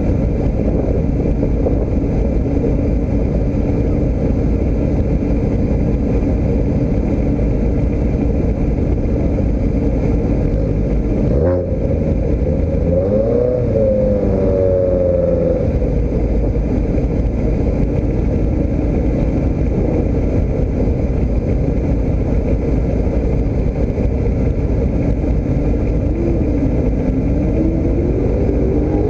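Motor vehicle running with a steady low rumble, its pitch wavering up and down briefly about halfway through and again near the end.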